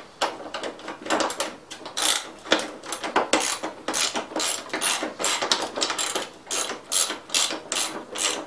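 Socket ratchet clicking in short runs of quick clicks, over and over, as a 7/16 socket is worked on a bolt of the mower's self-propel transmission.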